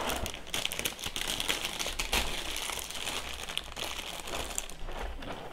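A cereal box being opened by hand, its plastic inner bag crinkling and crackling as it is pulled open.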